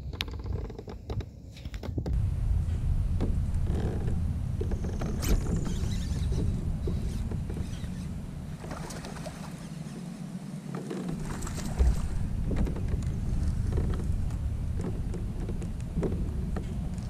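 Steady low rumble of wind buffeting the microphone on a kayak, with scattered light knocks and creaks from the boat and gear.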